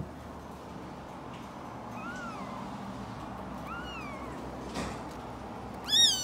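Newborn kitten mewing three times, thin cries that rise and fall in pitch about two seconds apart, the last one loudest. It is crying from hunger.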